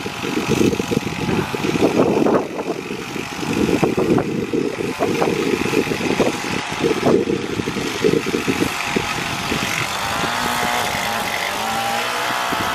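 Gas-powered string trimmer running under load, its line rattling as it cuts along the sidewalk edge. About ten seconds in it settles to a steadier, even engine note as the head is lifted off the ground.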